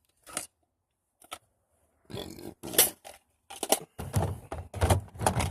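Handling noise from gear being moved close to the microphone: a few isolated light clicks, then scraping and knocking that gets busier and fuller near the end.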